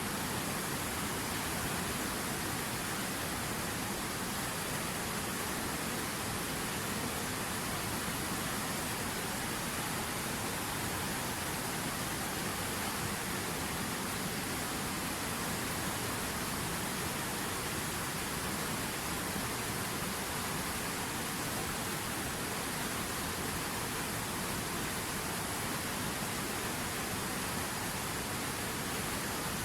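River water running, a steady, even rush of flowing water with no change in level.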